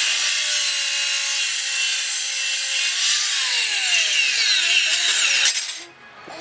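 Power saw cutting through steel square tubing: a loud, high grinding screech whose pitch slides down in the later part, stopping abruptly near the end.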